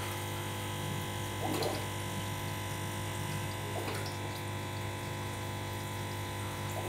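Aquarium equipment running: a steady electric pump hum with water moving. Three faint brief noises are heard, about one and a half, four and seven seconds in.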